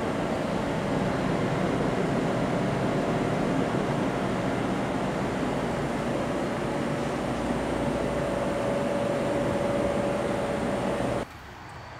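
A steady droning noise of rumble and hiss, with a faint held hum in it, that cuts off abruptly near the end.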